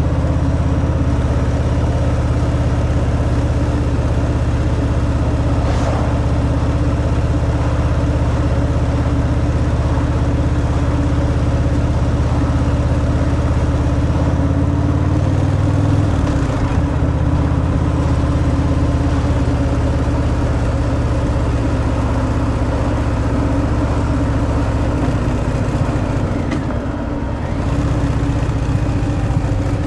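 A Harley-Davidson Fat Boy's stock-exhaust Milwaukee-Eight 114 V-twin running under way, with a steady low rumble over a hiss of wind and road noise. The engine note shifts about halfway through and eases off briefly near the end.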